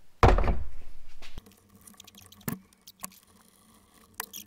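A coil-on-plug ignition coil being handled and fitted down into a Ford 4.6L V8 engine: a loud burst of handling noise lasting about a second that cuts off suddenly, then a few sharp clicks and knocks.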